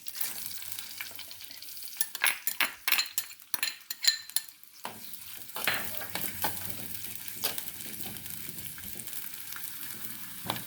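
Sliced onion sizzling in hot coconut oil in a clay chatti, with a spoon stirring and knocking against the pot in a run of clicks from about two seconds in to nearly five seconds in. The sizzle starts sharply as the onion goes into the oil and then runs steady, with an occasional click.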